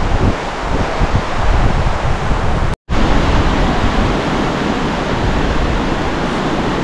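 Steady rush of a fast-flowing stream, with wind buffeting the microphone in the first couple of seconds. The sound cuts out for an instant just under three seconds in.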